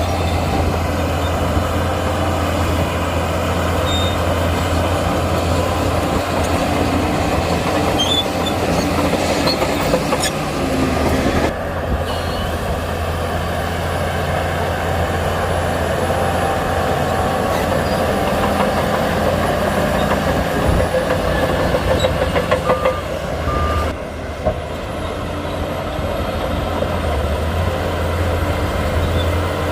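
Heavy diesel earthmoving machinery running steadily under load, a continuous deep engine drone with a mechanical rattle over it. The sound changes abruptly twice, about 11 and 24 seconds in.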